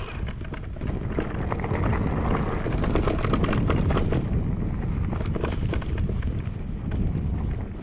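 Electric mountain bike riding over a rough, rocky trail: tyres rolling over stones and the bike rattling with many small knocks. Wind buffets the microphone throughout.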